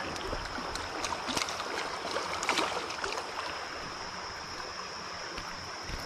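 Creek water running in a steady rush, with a few short sharp splashy sounds, the strongest about two and a half seconds in. A thin steady high-pitched tone sits above it.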